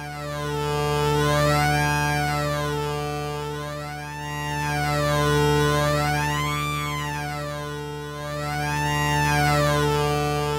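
Moog Sub 37 analog synthesizer holding one low drone note. Its bright upper overtones sweep up and down about every two seconds. The whole sound swells and fades on a slower cycle of about four seconds.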